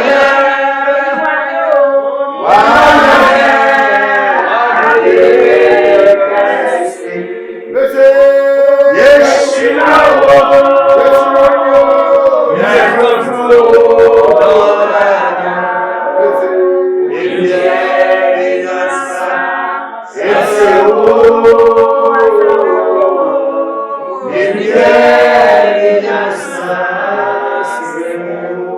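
Several voices singing a worship song together in long held phrases, with short breaths between lines.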